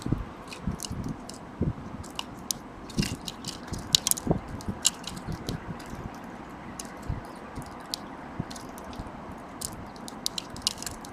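An animal crunching and chewing dry food: irregular crisp crunches and clicks.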